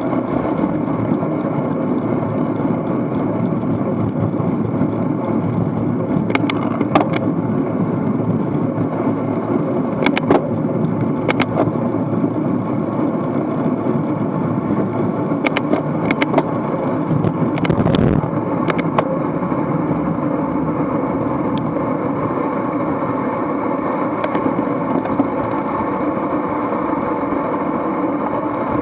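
Steady wind rush over the microphone of a bicycle-mounted action camera as the rider races in a pack at about 16 to 24 mph, with tyre and drivetrain noise beneath. A handful of short sharp clicks come between about six and nineteen seconds in.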